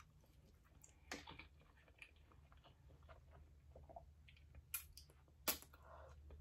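Faint chewing of a mouthful of garlic linguine, with sharp clicks about a second in and twice near the end, the last the loudest.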